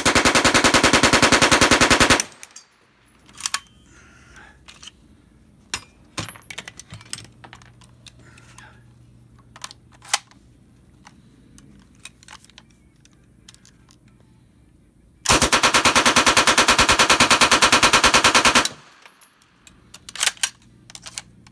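Suppressed submachine gun firing two long full-auto bursts: one of about two seconds at the start and one of about three and a half seconds later on. Scattered clicks and knocks come in between.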